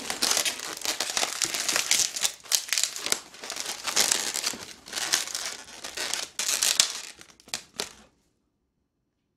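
Latex modelling balloon rubbing and stretching under the fingers as it is twisted and pinch-twisted into ears, in uneven bursts. It cuts off suddenly about eight seconds in.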